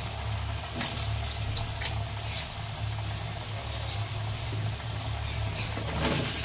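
Potato chunks sizzling in hot oil in a kadai on high flame, with scattered crackles and pops of spitting oil. Near the end the sizzle grows louder as more raw potato pieces are tipped into the oil.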